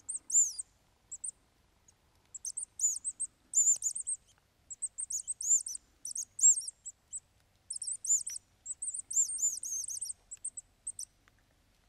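Classic wooden mouse-squeak predator call (myškovačka) blown in short, very high squeaks that arch up and down in pitch, coming in quick clusters with short pauses. It imitates a mouse's squeaking to lure foxes and other predators.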